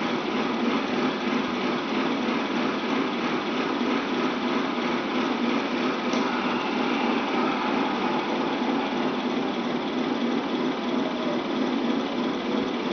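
Steady engine-like drone of radio-controlled 1/16 scale model tanks idling, running without change throughout.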